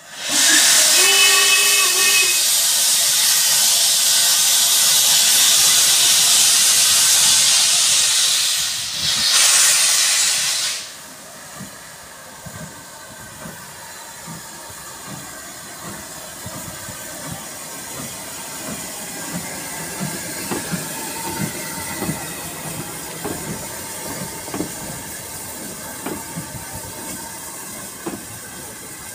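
Steam tank locomotive 41312, an LMS Ivatt Class 2MT 2-6-2T, moving off: a short whistle about a second in, loud steam hissing from the cylinder drain cocks for about the first ten seconds, then quieter irregular exhaust chuffs and clanking as the engine and coaches roll past.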